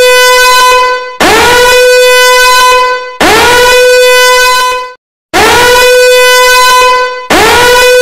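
Danger alarm horn sounding a string of loud, evenly repeated blasts. Each blast swoops quickly up to a steady pitch, holds for about two seconds and then fades, with a short break before the next.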